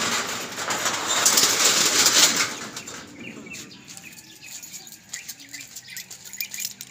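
Corrugated roll-up metal shop shutter being pushed open, rattling loudly in two runs over the first two seconds or so, then going quiet.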